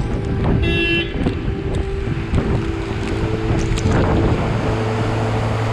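Heavy rain on a wet street with a steady hum of idling vehicles, and a brief high tone about a second in. About four seconds in this gives way to the steady rush of floodwater pouring down a walled channel.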